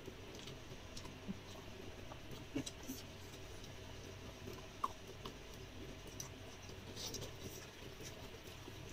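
Faint, scattered small clicks and soft wet sounds of eating by hand: fingers picking rice and food off a plate, and quiet chewing.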